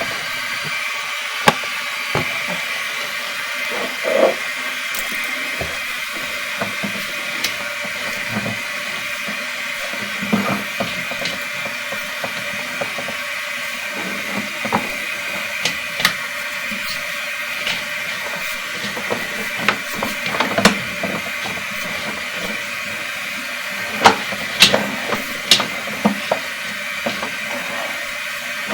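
Sewer inspection camera's push cable being fed into a drain line through a toilet flange: irregular clicks and knocks over a steady hiss, with a cluster of louder knocks near the end.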